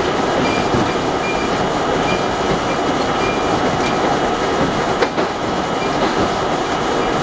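An R32 subway car running along the track, heard from inside the car: a steady rumble of wheels on rail, with one sharp knock about five seconds in.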